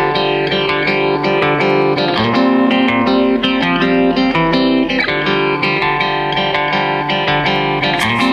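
Instrumental background music: a plucked guitar tune.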